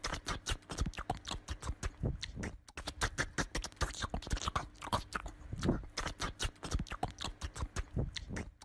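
Small dog jumping again and again against a wooden door: an irregular patter of claw taps, knocks and scrapes on the door and wooden floor, several a second.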